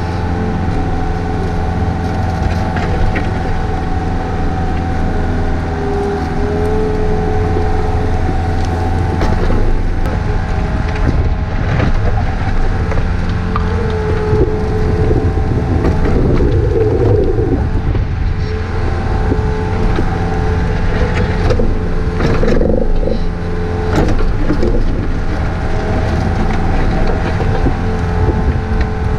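Takeuchi TB153 compact excavator's diesel engine running steadily under working load, with a whine that rises and falls as the hydraulics work and a few knocks from the bucket.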